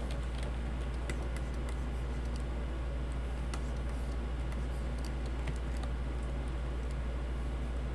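Faint, irregular clicks from a computer keyboard and mouse being worked at a desk, over a steady low hum.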